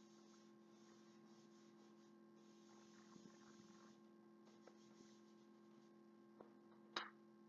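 Near silence over a steady electrical mains hum. Faint scratching of soft pastel chalk on card comes in the middle, and a single sharp click near the end.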